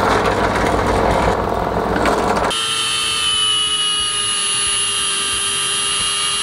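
Drill press drilling into clear acrylic: a rough cutting noise for about two and a half seconds, then an abrupt change to a steady motor whine of several held tones as the bit runs on in the hole.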